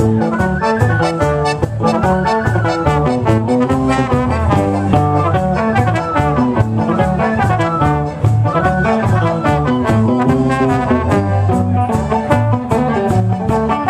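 Live Celtic band playing a fast instrumental tune, with a busy melody over a strong bass line and a steady drum beat.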